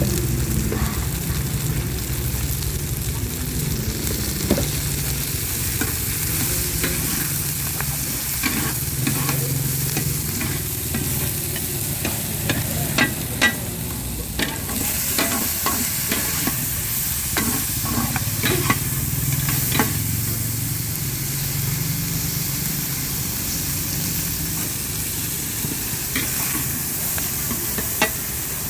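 Beef stir-fry sizzling in a hot pan, with a steady hiss. A metal spatula clinks and scrapes against the pan many times in the middle stretch and once more near the end.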